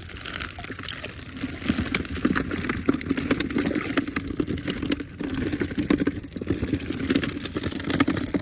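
Water sloshing and splashing in many quick small splashes, as a netted catch of sea catfish thrashes in the water.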